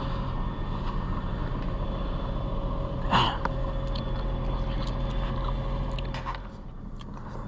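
Nissan GT-R's twin-turbo V6 idling steadily, a low even hum. It drops in level a little after six seconds in.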